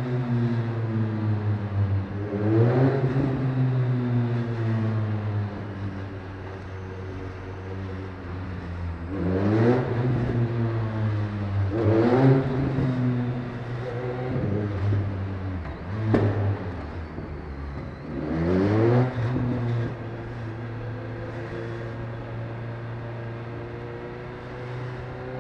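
Sport motorcycle engine pulling through traffic in a road tunnel. Its note sinks as it rolls off the throttle, then rises in about five short bursts of acceleration, the last a few seconds before the end.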